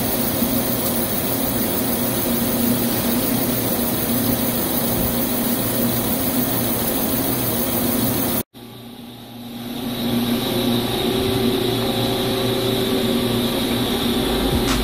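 CNC boring machine face-milling titanium with a 160 mm four-insert face mill at 400 RPM on a light 0.2 mm finishing pass under coolant spray: a steady cutting and spindle drone with a hiss of coolant over it. The sound drops out for an instant about eight and a half seconds in, then builds back to the same steady level.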